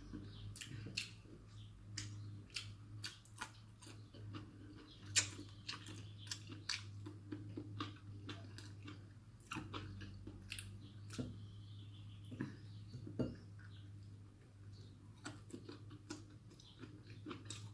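A person eating close to the microphone: chewing and mouth sounds mixed with irregular sharp clicks of utensils on a plate, over a steady low hum.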